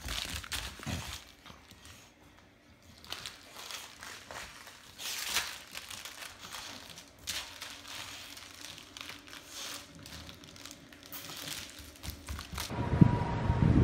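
A bully-breed dog chewing, shaking and carrying a plush dragon toy, the toy crinkling and rustling in irregular bursts. Near the end a louder noise sets in.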